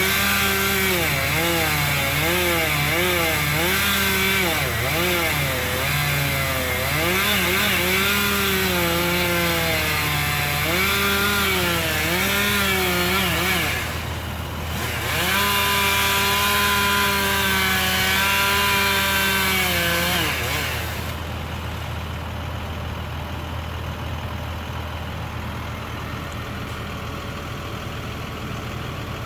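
Chainsaw cutting maple wood, its engine pitch dipping and recovering over and over as the chain bites. It makes one long cut, pauses briefly, makes a shorter second cut, then drops back to a steady low idle for the last third.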